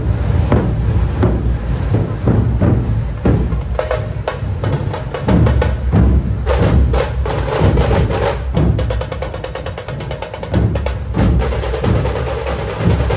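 Loud drum-led procession music: rapid sharp drum strikes over heavy bass, with a fast roll of strikes midway.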